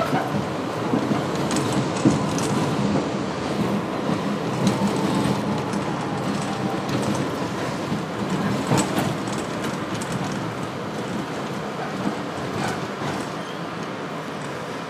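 Running noise inside an R62A subway car on elevated track: a steady rumble of wheels on rail with scattered sharp clicks from the rail joints. It grows gradually quieter over the last few seconds as the train slows toward a station.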